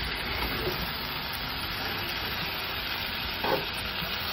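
Spiced masala and chicken pieces sizzling steadily in a non-stick pan while being stirred with a wooden spatula, with one short knock about three and a half seconds in.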